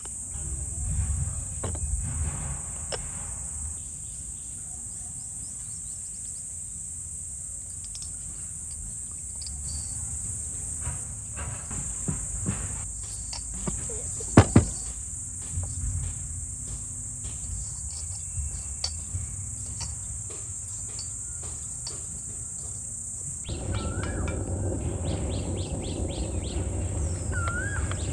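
Crickets chirping steadily in the background, with light taps and rustles from hands mixing flour and dough in a stainless steel bowl, and a sharp double clink about halfway through. Near the end the background grows louder and a few short bird chirps come in.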